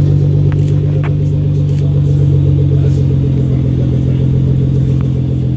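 Nissan GT-R R35's twin-turbo V6 idling through a straight-piped Armytrix titanium valvetronic exhaust: a steady, deep drone that eases slightly lower in pitch about four seconds in.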